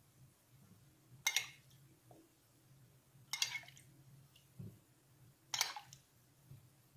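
Metal spoon clinking against a bowl three times, about every two seconds, while scooping out pieces of jelly, with a soft thud in between.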